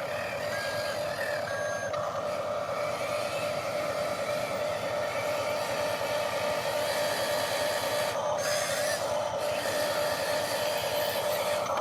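Electric motors and gearboxes of radio-controlled construction models running with a steady whine. A few short electronic beeps sound in the first two seconds.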